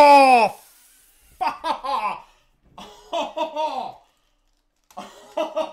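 A man's loud, excited "Oh!" that falls in pitch, then three short bursts of excited half-laughing vocalising, roughly one a second, as he reacts to a big card pull.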